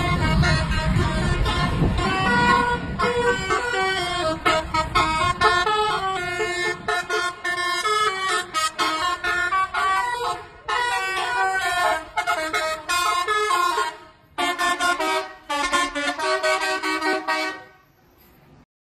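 Bus telolet horn, a set of multi-tone air horns, playing a quick tune of stepped notes with a few short breaks, over a low vehicle rumble at first; it cuts off suddenly near the end.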